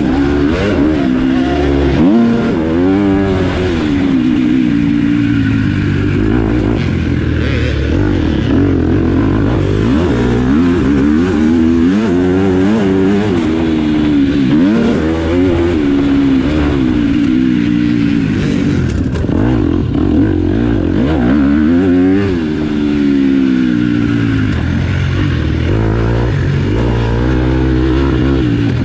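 Motocross bike engine being ridden hard, its pitch rising and falling over and over as the rider works the throttle and gears.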